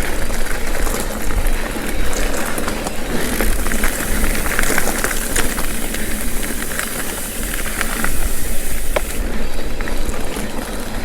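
Mountain bike rolling along a dirt singletrack: a steady rush of wind on the microphone and tyre noise, with many small clicks and rattles from the bike.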